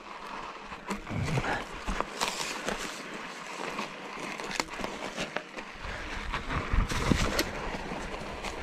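Trek Fuel EX 7 full-suspension mountain bike riding over a rough forest trail: tyres on dirt and roots, with many sharp clicks and knocks from the bike rattling over the bumps. A low rumble joins about six seconds in.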